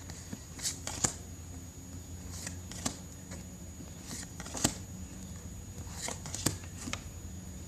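Magic: The Gathering playing cards being handled and flipped one at a time, with soft flicks and taps of card against card at uneven intervals.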